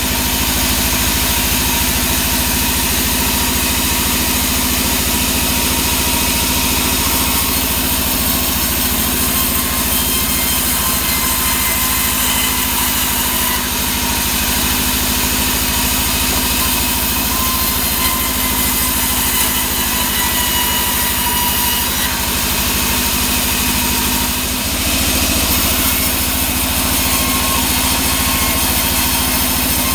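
Sawmill band saw running with a steady hum, cutting sengon (albizia) timber that is fed through it by hand.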